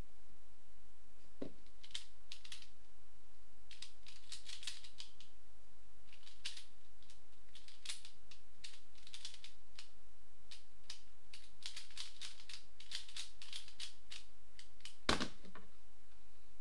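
Plastic Pyraminx puzzle being turned fast in a speedsolve: bursts of quick plastic clicking and clacking, then a single loud knock near the end.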